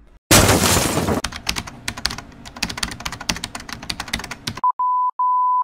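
Keyboard-typing sound effect: a short, loud rush of noise, then rapid key clicks for about three seconds, then two steady high-pitched beeps near the end.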